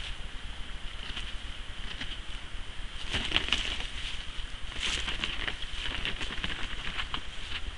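Aardvark digging for termites: its claws scrape and scratch at the soil in quick irregular bursts, busiest from about three seconds in, over a steady high hum.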